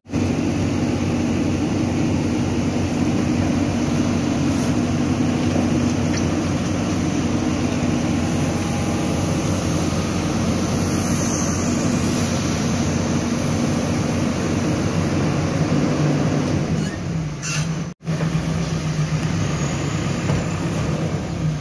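JCB backhoe loader's diesel engine running steadily while it works the hydraulic backhoe arm. Near the end the sound breaks off for an instant and the engine comes back at a lower, steadier note.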